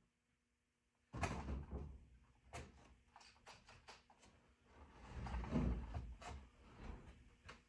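Handling noises from hard objects being moved: irregular knocks, clicks and scraping, with a sudden louder clatter about a second in and another louder stretch around five to six seconds in.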